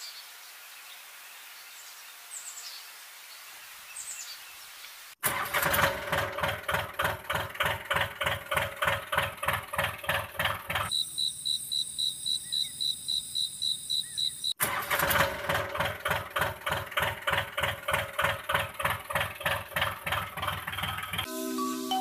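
Electronic tractor-engine chugging sound, about three beats a second, starting abruptly after a few seconds of faint outdoor ambience with a few bird chirps. Midway it is broken for a few seconds by a high, rapidly pulsing electronic warble, then it resumes. Near the end it cuts off as marimba-like music begins.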